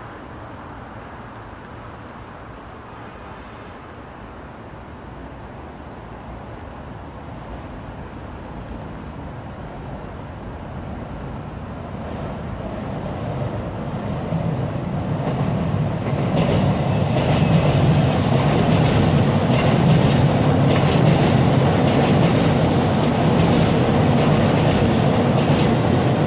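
Seoul Subway Line 7 electric train coming across a river rail bridge. Its rumble builds from about twelve seconds in and is loudest over the last ten seconds, with high-pitched wheel squeals as it passes.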